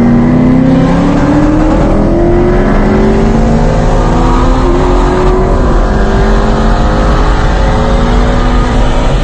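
Car engine pulling hard at full throttle during a roll race, loud and steady, its pitch climbing slowly through a long pull in one gear after a quick jump right at the start.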